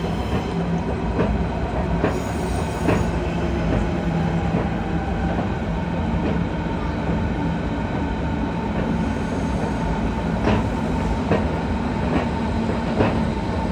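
Berlin S-Bahn train running on its rails: a steady rumble with a low motor hum, and sharp clacks every so often as the wheels pass over rail joints.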